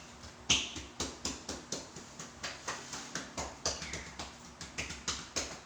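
Quick, even series of sharp hand slaps on a patient's body during a bone-setting massage, about four a second. The first slap, about half a second in, is the loudest.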